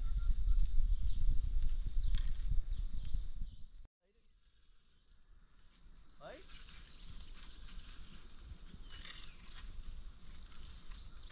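A steady, high-pitched chorus of shrilling insects. For the first few seconds it sits over a heavy low rumble. About four seconds in, the sound drops out briefly, then fades back in with the insects alone.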